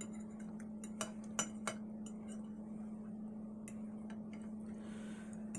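A few light clinks of cutlery against a plate, the clearest three coming about a second in and spaced under half a second apart, over a steady low hum.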